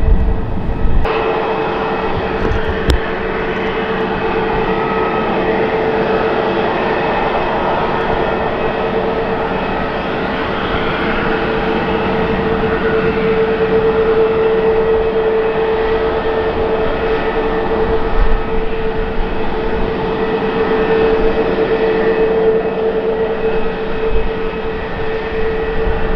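Airbus A321neo's CFM LEAP-1A32 turbofan engines at taxi power: a steady jet whine with a strong hum-like tone, coming in sharply about a second in after a low wind rumble on the microphone.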